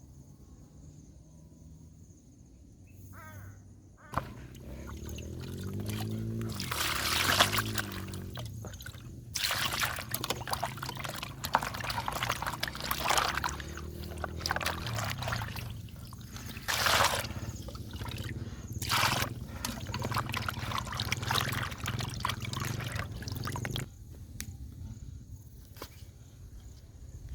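Water pouring and splashing in uneven spells, over a steady low hum.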